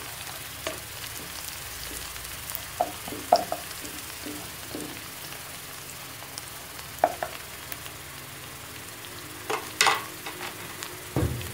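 Chopped onion sizzling steadily in hot oil in a nonstick pan. A slotted spatula scrapes and knocks against the pan now and then as it is stirred, with the sharpest knocks about three seconds in, about seven seconds in and near the end.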